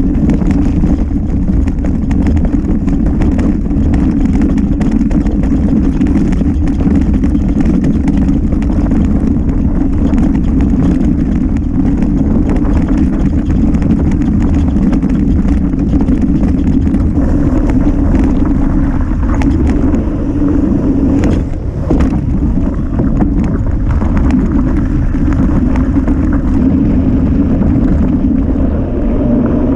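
Mountain bike descending a rough trail at speed: steady wind buffeting on the camera's microphone and tyre rumble, with constant rattles and knocks from the bike over roots and rocks.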